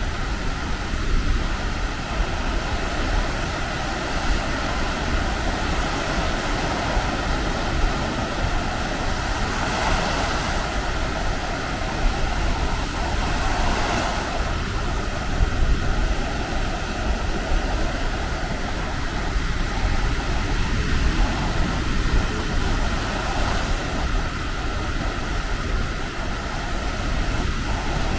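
Baltic Sea surf washing steadily onto the beach, with wind rumbling on the microphone. The wash swells a little louder about ten and again about fourteen seconds in.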